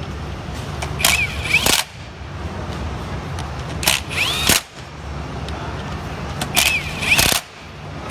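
A Maximum 20V brushless hi-torque impact wrench hammering in three short bursts, each under a second, about two and a half seconds apart, its motor whine sweeping up and back down in each burst. A steady low hum runs underneath.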